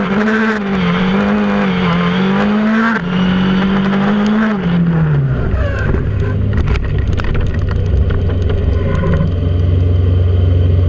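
Onboard sound of a Formula Renault 2.0 single-seater's four-cylinder engine pulling hard, with a gear change about three seconds in. About five seconds in the engine note falls away as the car leaves the road in a crash, and a low rumble with scattered knocks and scrapes follows as it runs across the grass bank.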